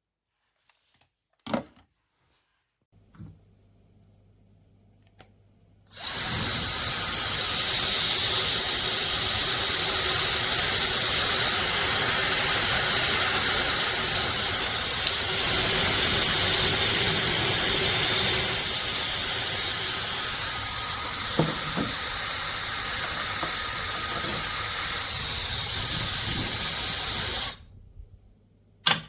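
SUPGALIY mini ionic hair dryer blowing with a steady airy rush. It comes on about six seconds in after a few faint clicks, gets a little quieter about two-thirds of the way through, and cuts off suddenly near the end, followed by a click.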